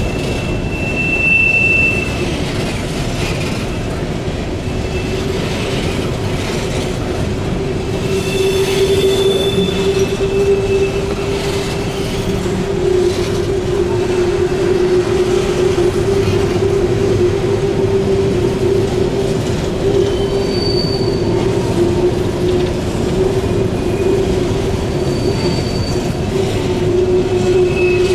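A train of empty steel coal hoppers rolling past on a curve: a steady rumble of wheels on rail with a continuous hum, and brief high-pitched wheel squeals now and then from the wheels rubbing the rail on the curve.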